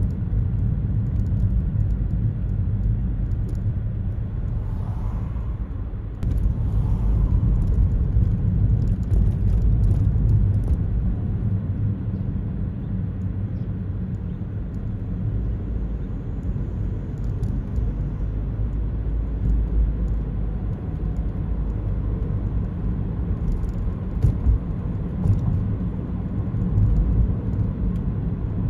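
Steady low rumble of a car driving on city streets, tyre and engine noise heard from inside the cabin. It grows a little louder about six seconds in, then settles.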